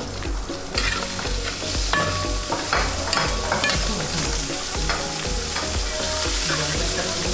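A metal spoon stirring and pressing tuna chunks down into thick, bubbling fish-curry gravy in a metal pot, with a bubbling hiss throughout and the spoon clinking against the pot several times between about 2 and 4 seconds in.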